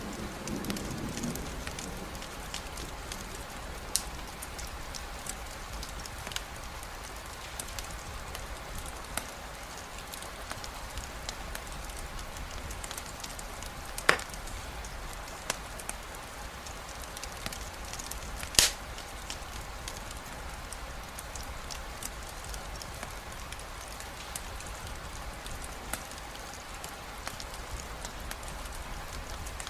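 Steady rainfall with a campfire crackling, scattered small snaps and two louder pops about halfway and two-thirds of the way through. A low thunder rumble dies away in the first second or two.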